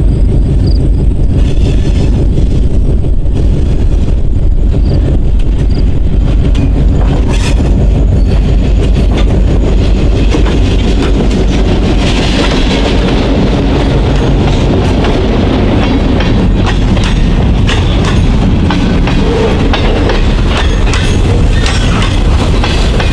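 Diesel-hauled freight train passing close by: a steady, loud low rumble with wheels clacking over rail joints throughout.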